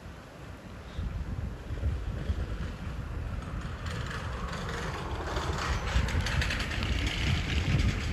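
Wind buffeting the microphone with a gusty low rumble, while a train approaches and grows steadily louder from about four seconds in.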